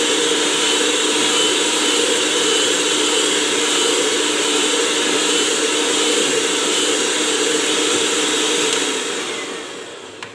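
Electric hand mixer running steadily, its spiral wire hooks whisking a runny egg mixture in a plastic bowl. The motor winds down and stops near the end.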